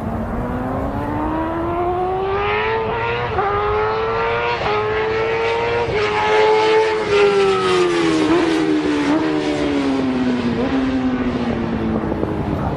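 Motorcycle engine running under way, its pitch climbing steadily for about six seconds as it speeds up, then falling back as it slows, with a few brief hiccups in the note along the way.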